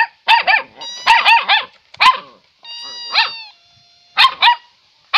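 A kitten mewing over and over: short, high-pitched cries in quick clusters, with a few longer held mews between.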